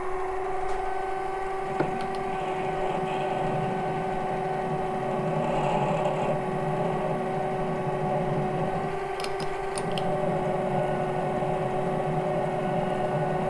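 Metalworking lathe running at a steady speed with a constant motor whine while a twist drill in the tailstock bores a 1/8-inch hole into the end of the spinning pin. A few light clicks are heard about two seconds in and again past the middle.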